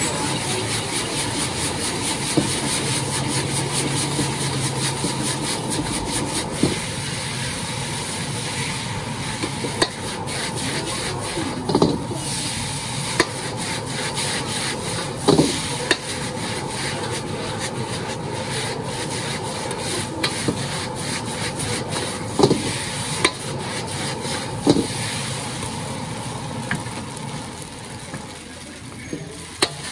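Metal ladle and spatula scraping and tossing noodles in a steel wok over a gas flame, in rapid continuous strokes with some sizzling. A handful of louder knocks stand out where the ladle strikes the wok.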